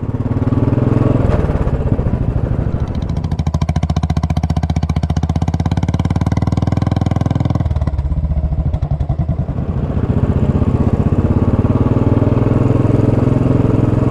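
Royal Enfield Classic single-cylinder motorcycle engine running steadily on the move, heard from a camera mounted on the bike, with an even, rapid firing beat. The sound shifts a little under eight seconds in and picks up again a couple of seconds later.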